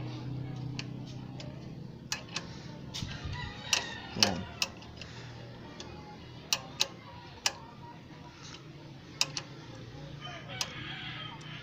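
Steel combination wrench clicking and clinking against the fuel-tank mounting bolt of a motorcycle as the bolt is loosened, in sharp irregular clicks. A rooster crows in the background.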